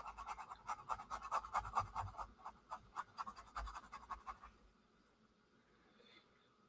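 Faint rapid brushing of a paintbrush working acrylic paint onto paper, short quick strokes several a second, stopping about four and a half seconds in.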